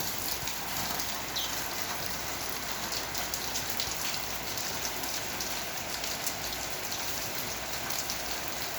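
Steady rain falling, many small drop impacts ticking on surfaces in an even wash of noise.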